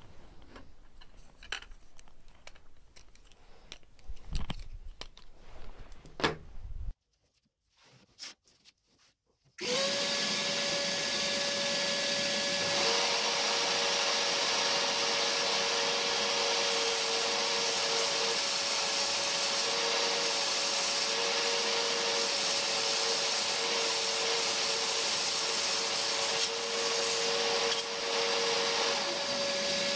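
A circular saw mounted under a homemade saw table starts up about ten seconds in and runs steadily with a constant whine while a chipboard panel is fed through it. A second wavering tone comes in while it cuts, and the motor starts to wind down at the very end. Before that come a few light knocks from boards being handled.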